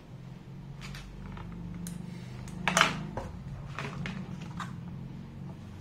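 Handling sounds from a neckband headset, its clear plastic bag and its cardboard retail box: scattered clicks and rustles, the loudest knock about halfway through, over a low steady hum.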